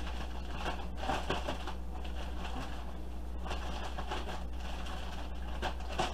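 A plastic zip-top bag holding cornmeal and flour being shaken and handled, the plastic crinkling and the dry coating rustling inside, in an irregular run of small scratchy sounds.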